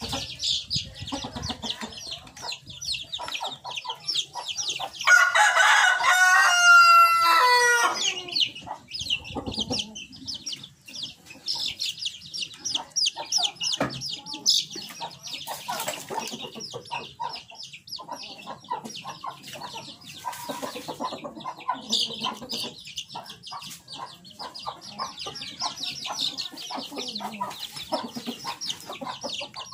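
A white rooster crows once, loudly, about five seconds in, the crow lasting about three seconds. Chicks peep constantly and chickens cluck throughout.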